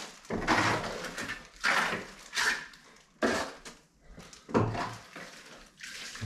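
Steel plastering trowel scraping and sweeping wet finish plaster across a wall in about five short strokes, with the blade also scraped over the hawk to load it.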